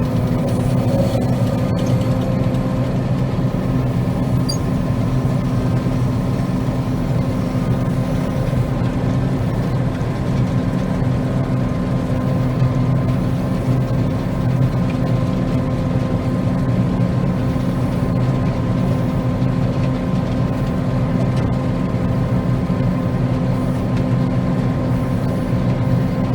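Combine harvester running steadily while cutting soybeans: an even, unbroken drone with a constant hum.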